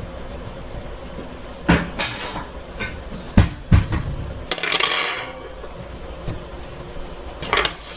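Metal kitchenware clanking: a baking pan and oven rack knocking several times, then a second-long scraping slide about halfway through, and another short clatter near the end.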